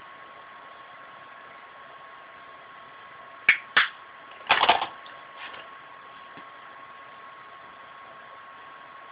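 Makeup brush tapped against a hard edge to knock off excess eyeshadow powder. There are two sharp taps about three and a half seconds in, then a quick cluster of taps and a couple of fainter ones. Under them runs a steady hiss with a faint constant tone.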